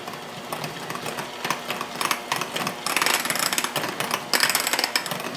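KitchenAid electric hand mixer running, its wire beaters whipping mashed potato and sour cream in a glass bowl, with a rapid clatter of the beaters against the glass. It gets louder about three seconds in.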